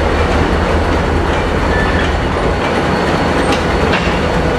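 NSW 48 class diesel locomotive with an Alco engine rolling past close by, the engine drone and the wheels on the rails mixed in a steady loud rumble. The low engine drone drops away about two and a half seconds in as the locomotive moves off.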